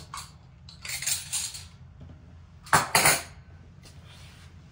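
Utensil scraping and clattering against cookware in two bursts: one about a second in, and a louder one near three seconds.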